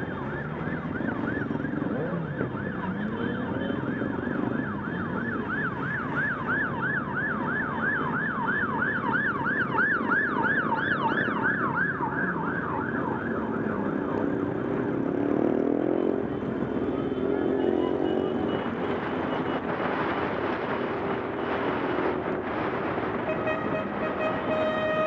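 Siren wailing in a fast yelp, about three sweeps a second, over the engines of a group of motorcycles riding together. The siren fades out about halfway through, leaving motorcycle engines revving and running, and a horn sounds near the end.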